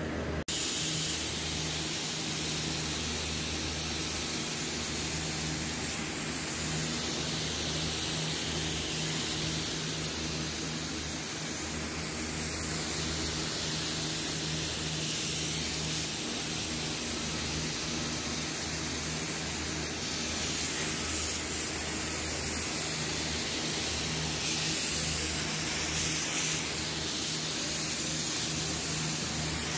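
Paint spray gun hissing steadily as it sprays red paint, starting abruptly about half a second in, with a steady low hum underneath.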